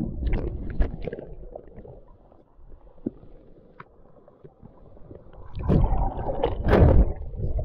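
Sea water sloshing and splashing, with low rumbling on the microphone, in two surges: one at the start and a louder one about six to seven seconds in.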